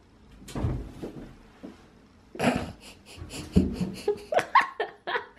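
Kittens playing with a shower curtain: a thud as one pounces about half a second in, rustling and scrabbling, and a second thud a few seconds later. Quick breathy laughter follows near the end.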